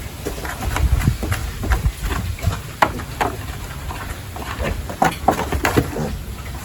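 Pigs grunting and squealing in many short calls over a low rumble.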